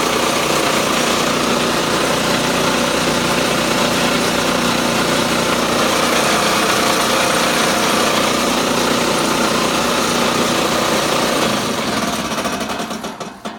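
Clausing metal lathe running under power from its electric motor and belt drive, a loud, steady hum and whir, then switched off and spinning down to a stop near the end.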